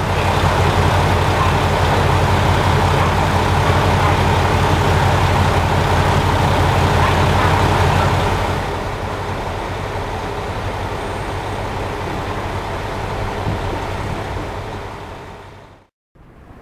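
Diesel engines of a Kiha 220 railcar idling in a steady low rumble. About halfway through it drops to a quieter, more even hum, then fades out near the end.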